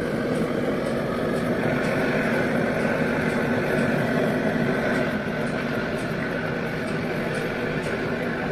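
Steady mechanical running noise with a faint hum in it, holding an even level throughout, with a slight drop about five seconds in.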